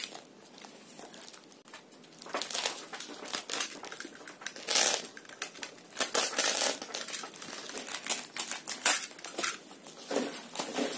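Plastic parcel wrapping crinkling and rustling as it is cut open with a box cutter and pulled apart by hand, in irregular bursts that start about two seconds in.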